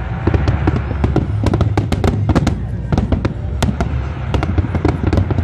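Dense fireworks barrage: many shell bursts in rapid, overlapping bangs over a continuous low rumble.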